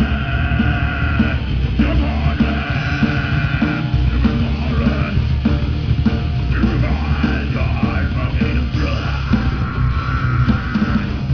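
Live heavy rock band playing at full volume: distorted guitars, bass and a pounding drum kit, with shouted vocals coming in and out in phrases.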